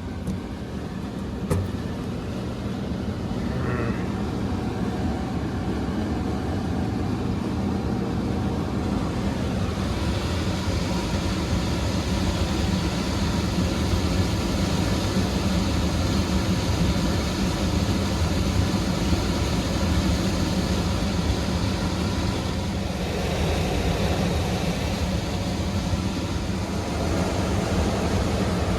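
Furnace motor running with a steady low hum that grows louder about ten seconds in, with a single click about a second and a half in.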